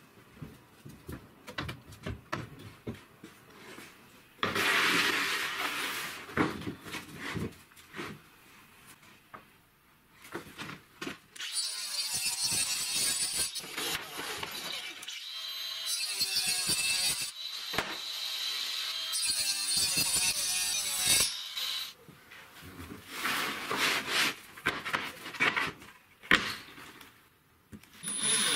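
Workshop sounds: scattered knocks and clatter of wooden parts being handled, then, from a little before the middle, a long stretch of a wooden board being hand-sanded as a rough rasping hiss broken by short pauses.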